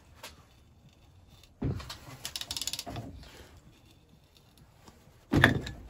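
Ratchet wrench turning a stud extractor on a rusted stud in a cast-iron Lister vaporiser body: a sudden clunk about one and a half seconds in, then a quick run of ratchet clicks. A loud sharp knock near the end.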